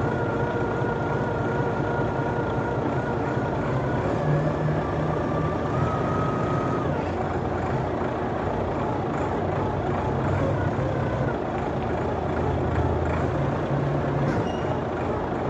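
Diesel engine of a heavy container forklift running steadily under load, with a thin high whine over it for the first seven seconds or so that steps down in pitch about four seconds in.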